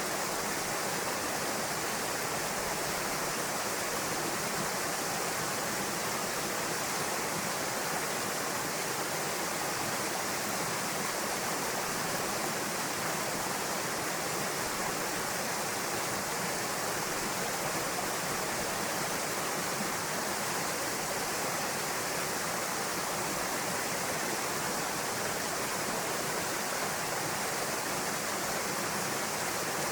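A small waterfall pouring into a pool, making a steady, unbroken rush of water.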